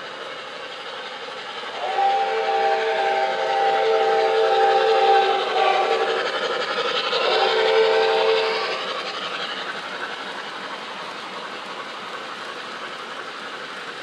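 MTH O-gauge Blue Goose Santa Fe Hudson's electronic chime steam whistle, blown twice: a long blast of about four seconds and then a shorter one. Under it the model train runs steadily on the three-rail track.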